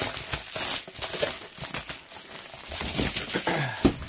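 Black plastic bag wrapping of a parcel crinkling and rustling as it is handled and pulled at, with a single thump near the end as the parcel is set down on the floor.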